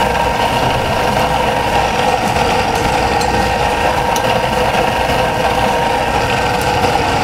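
A kitchen machine gives a steady, unbroken drone. A few faint clicks come from metal tongs against a frying pan.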